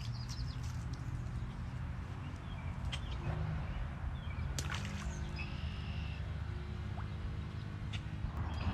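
Outdoor background at a pond bank: a steady low rumble with scattered faint clicks.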